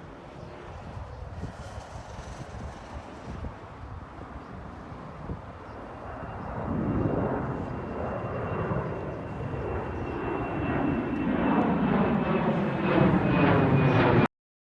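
Jet airliner taking off, its engines at takeoff power with a steady high whine. The noise grows steadily louder over the second half, then cuts off suddenly near the end.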